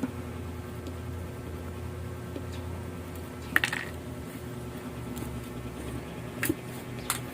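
A drill's power plug being pushed into a wall socket: a few light clicks and handling knocks, the sharpest about three and a half seconds in, over a steady low hum.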